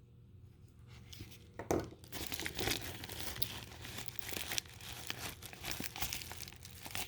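Packaging being crinkled and torn open by hand, in an irregular run of rustles and crackles. It starts about a second in, with a louder rustle shortly after.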